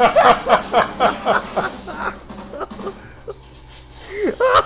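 A person laughing heartily in a quick run of 'ha-ha' bursts, about six a second, which die away after about two seconds. A brief loud shout comes near the end.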